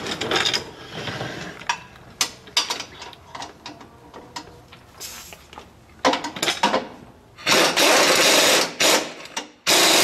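Tools clinking and clicking as a socket is fitted to a bolt. Then an impact wrench hammers in a few short bursts and one longer run of about two seconds, with another run starting near the end, as it tightens the rear lower control arm bolt on a Jeep JK axle.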